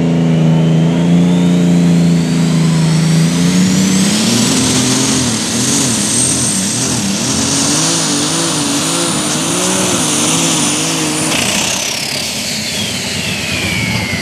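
Light super stock pulling tractor's turbocharged diesel engine under full power. A high turbo whine climbs over the first four seconds to a steady scream while the engine note wavers up and down. Near the end the whine falls away as the engine is backed off at the end of the pull.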